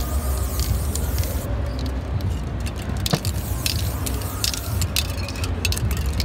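Aerosol spray-paint cans hissing in many short bursts as paint is sprayed onto a board, over a steady low background rumble.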